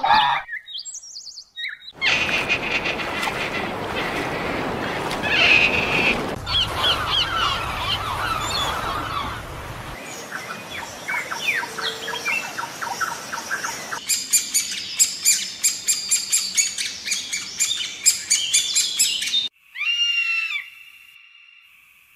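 Several different bird calls in turn: chirping and squawks, then a fast, evenly repeated run of chirps, and near the end a few short, sharp calls.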